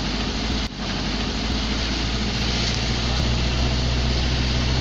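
Steady engine hum of a vehicle driving along a street, with even road and tyre noise, heard from inside the moving vehicle.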